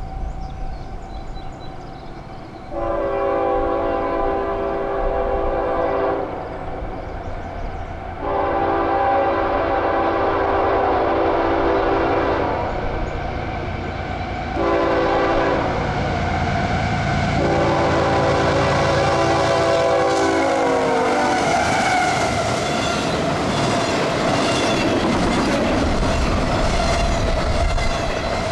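Canadian Pacific freight locomotive's horn sounding four blasts, long, long, short, long, the grade-crossing warning pattern. The last blast drops in pitch as the locomotive passes. Then a double-stack container train rolls by with the steady rumble and rhythmic clatter of its wheels on the rails.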